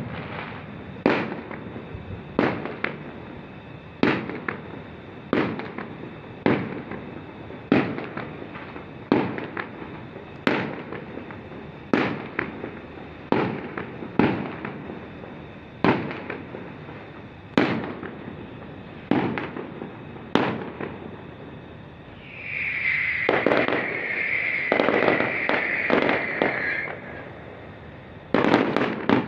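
Aerial fireworks bursting, a sharp bang about every second and a half like a cake firing shot after shot. About three quarters of the way through, a few seconds of dense continuous crackling take over, then the bangs resume.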